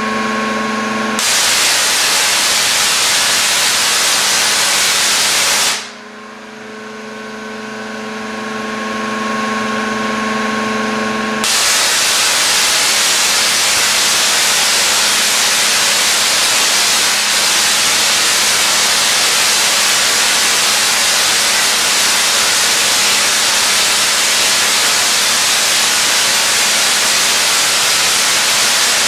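Tesla coil firing on a 12 kV 60 mA neon sign transformer: its sparks make a loud, steady hiss. The hiss starts about a second in, drops out near six seconds to a steady hum and a quieter, slowly growing hiss, then comes back loud about eleven seconds in.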